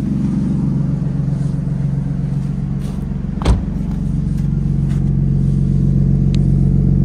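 Lexus GS300's 2JZ-GE inline-six idling steadily during a cold start, getting louder toward the end. A single thud about three and a half seconds in, a car door shutting.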